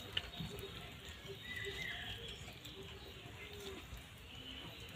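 Faint bird calls in the background, with a sharp click just after the start and light handling noise.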